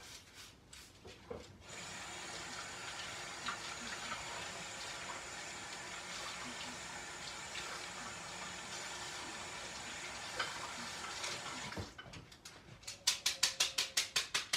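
Kitchen tap running into a sink while skewers are washed under it: a steady rush of water that stops about three seconds before the end. After it comes a quick run of sharp clicks, about five a second.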